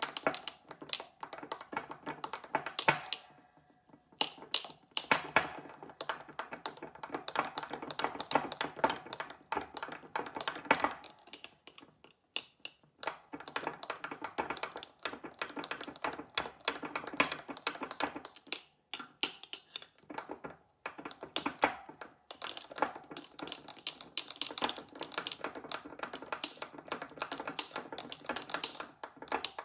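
A metal utensil clinking rapidly against the inside of a glass mason jar as liquid is stirred briskly, with a few short pauses.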